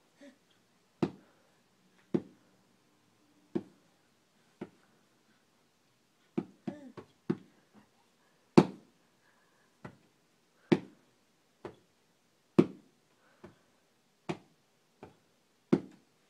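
Sharp taps on a hard surface, repeating unevenly about once a second, with a quick flurry of several taps about six and a half seconds in and the loudest tap just after it.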